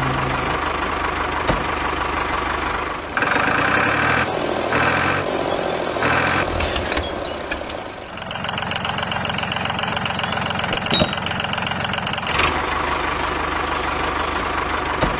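Tractor engine running steadily, its tone shifting a couple of times. Three short honk-like tones come between about three and seven seconds in.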